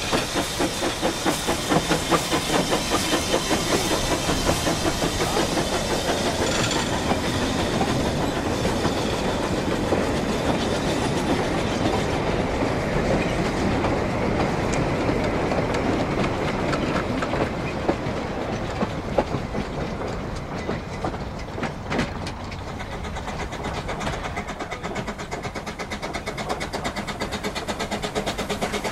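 Small narrow-gauge steam locomotive chuffing as it pulls a train of coaches away, then the coaches' wheels rolling and clicking over the rail joints as they pass. The sound eases off in the second half.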